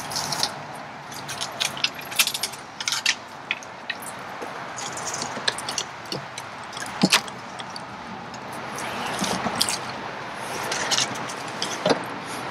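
Kayak and fishing gear knocking, clicking and scraping against a fallen tree trunk and its branches as the kayak is pulled under it by hand: many scattered sharp knocks and rattles over a steady background hiss.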